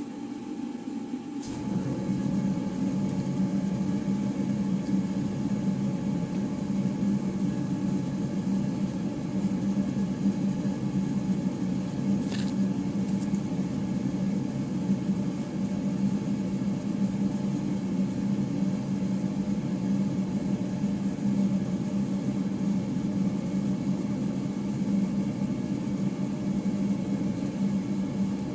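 An electric machine switched on with a click about a second and a half in, then running with a steady hum.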